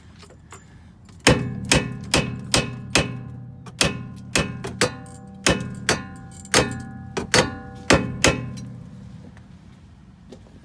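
Hammer striking steel on a car's rear suspension, knocking a rusted arm loose. About sixteen sharp, ringing metal blows come in uneven runs, starting about a second in and stopping a couple of seconds before the end.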